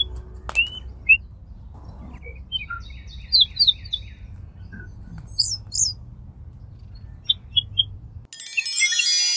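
Small birds chirping in short, scattered calls over a steady low rumble of background noise. Music starts suddenly near the end.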